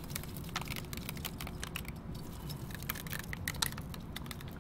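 Crushed glass and mirror chips clicking and clinking as they are picked up by hand and sprinkled onto wet concrete topping. The clicks are small and irregular, over a low steady rumble.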